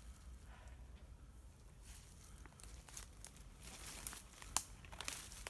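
Footsteps crunching through dry leaf litter and twigs: faint scattered crackles that grow busier after the midpoint, with one sharper snap about four and a half seconds in.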